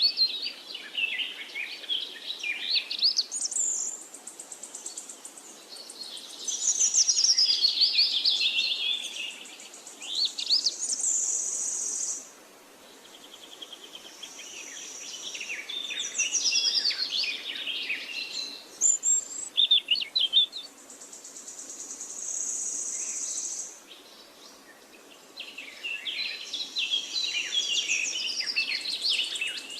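Birds chirping and singing in quick, high, sliding phrases, with a few held high buzzing trills that sound between phrases, about 11 and 22 seconds in.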